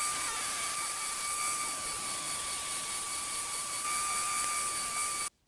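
Small vertical bench belt sander running steadily, its motor and belt giving a constant whine over a hiss, with the work lifted off the belt. The sound cuts off abruptly near the end.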